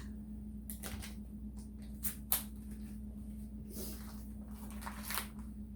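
Scattered light clicks and knocks of hands handling parts and wires, over a steady low hum. The sharpest clicks come about two seconds in.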